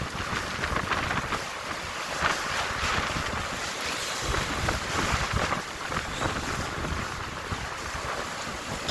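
Strong wind gusting, a rushing hiss that swells and eases, buffeting the microphone.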